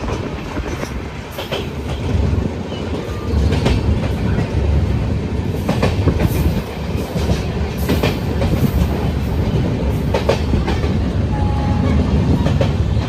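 Train running along the track: a steady low rumble with irregular clacks as the wheels cross rail joints.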